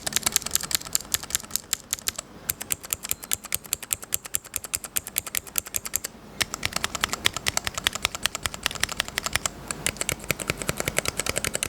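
Fast, continuous typing on a Keychron mechanical keyboard: a rapid stream of key clicks that stops briefly about two seconds in and again about six seconds in.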